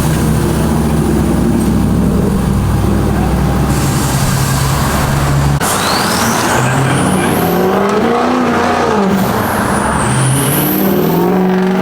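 Truck engine running: a steady idle at first, then after an abrupt change about halfway it revs up and back down a couple of times, with a high whine gliding up and down.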